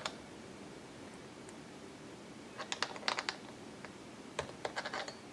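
Small metallic clicks and taps of a wrench and needle-nose pliers on the nut inside a wireless microphone handle as it is tightened down, in two short clusters of quick ticks about two and a half and four and a half seconds in.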